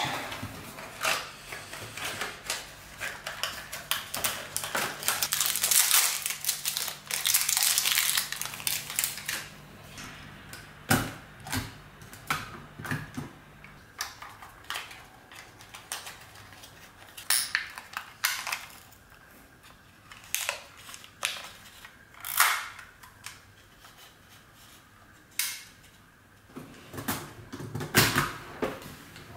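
Unpacking and loading a roll of 120 film: the cardboard box and its wrapper are handled and crinkle and tear in the first few seconds, then come scattered sharp clicks and snaps as the roll is fitted into the metal film insert of a Mamiya RB67 film back.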